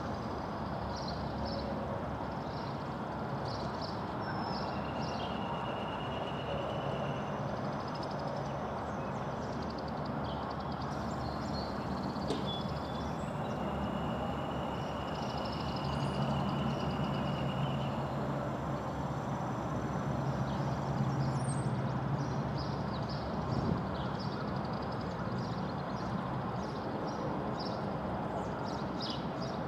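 Steady outdoor rushing noise with a low hum, over which birds chirp in short bursts, and two long even trills sound, the second about three seconds long.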